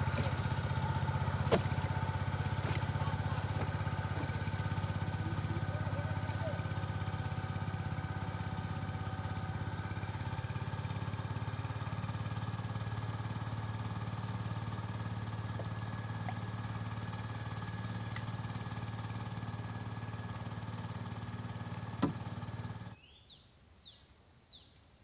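A small engine running steadily, with a few faint clicks, then cutting off suddenly near the end. Three quick high descending chirps follow.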